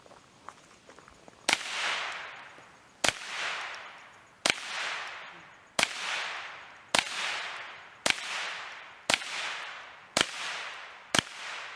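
Ruger 10/22 semi-automatic rifle firing .22 Long Rifle, nine single shots about a second and a half apart, the pace picking up slightly. Each sharp crack is followed by a long echo that fades over about a second.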